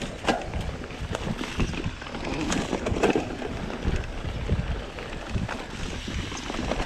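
Mountain bike riding down a trail: wind buffeting the microphone over the rumble of tyres on dirt and rocks, with scattered sharp knocks and rattles from the bike.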